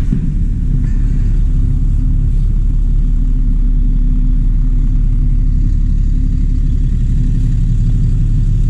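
A bus engine running close by: a steady, loud low rumble with an even hum.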